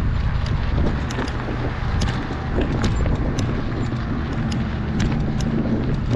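Mountain bike rolling over loose rocky gravel: a steady low rumble from the tyres and frame, with frequent sharp clicks and rattles from stones and the bike.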